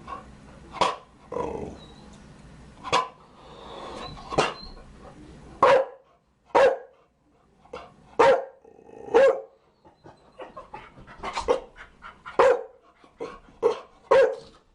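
Chow Chow barking: short, sharp single barks at irregular intervals, roughly one a second, with a few quicker pairs in the second half.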